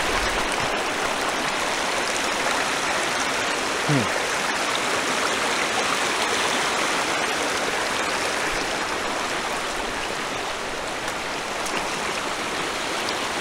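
Mountain stream rushing steadily over rocks, a constant even rush of water.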